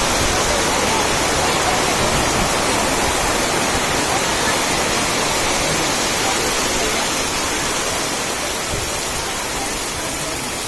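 Heavy downpour: a steady hiss of rain falling on the road and surroundings, easing slightly toward the end.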